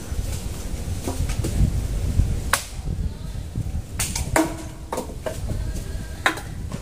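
A few sharp knocks of a tool striking a tree branch, spaced a second or two apart, over wind rumbling on the microphone.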